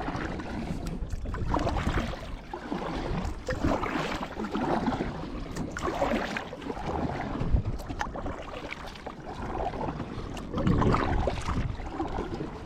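Water splashing and lapping around a kayak, with wind buffeting the microphone.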